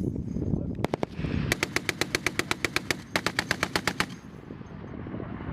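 Machine gun firing automatic bursts: a couple of shots about a second in, then two rapid bursts of about eight to nine rounds a second, separated by a short pause.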